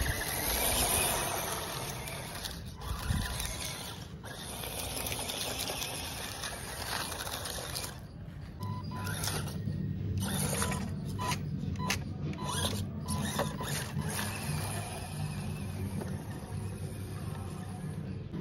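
Small electric motor and gearbox of an RC scale Suzuki Jimny crawler whirring as it drives over dirt and dry leaves, with a faint whine that becomes steadier about halfway through.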